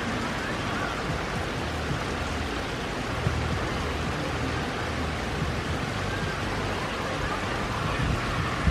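Steady rain falling on a wet concrete yard and lawn, an even hiss. A few louder single taps stand out, mostly near the end.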